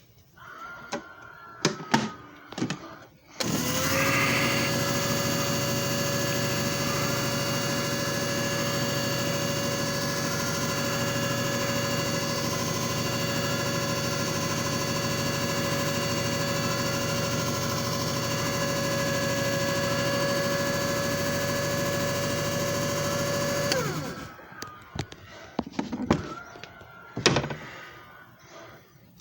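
JFJ Easy Pro disc repair machine running a cycle: a steady motor whirr with a hum that starts abruptly a few seconds in and winds down after about twenty seconds. Clicks and knocks from handling the machine come before and after it.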